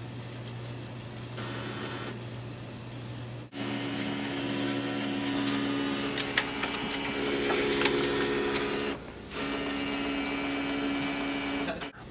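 HP inkjet all-in-one fax machine running: a motor whirs in steady spells with a few clicks, getting louder about three and a half seconds in and stopping briefly about nine seconds in.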